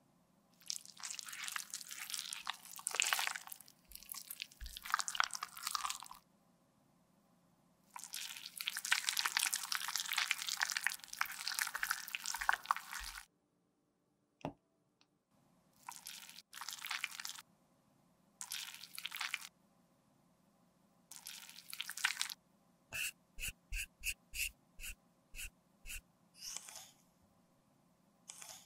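Close-miked sounds of liquid lipstick being handled and refilled: long bursts of wet squishing and squirting as pink lipstick is worked through a small plastic syringe, then shorter bursts. Near the end comes a quick run of about ten light clicks.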